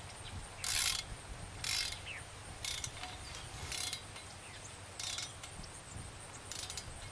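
Ratchet wrench worked in short strokes, each a brief burst of pawl clicks, about once a second, gradually spacing out, as it tightens set screws on a pipe's top cap.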